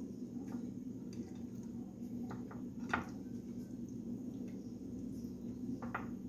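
Raw chicken pieces handled by hand and laid into a glass baking dish: faint squishing with a few light taps, the sharpest about three seconds in, over a steady low hum.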